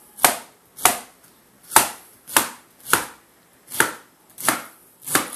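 Kitchen knife chopping through a pineapple onto a plastic cutting board: about eight sharp, evenly spaced strokes, roughly one every two-thirds of a second.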